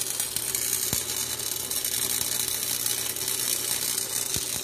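Electric arc welder welding a car's exhaust muffler: the arc's steady crackling sizzle, with a faint low hum underneath.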